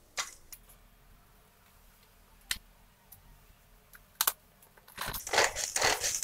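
A few sharp plastic clicks and knocks as the lid of a pull-string hand chopper is fitted, then from about five seconds in a fast run of zipping cord pulls spinning its blades through capsicum and onion.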